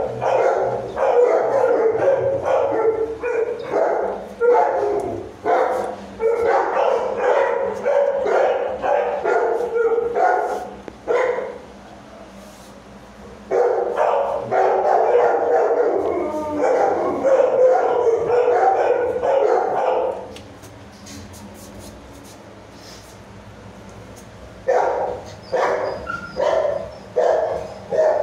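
Bullmastiff puppies barking and yapping in runs of short barks. They fall quiet twice: for about two seconds around eleven seconds in, and for about four seconds from twenty seconds in.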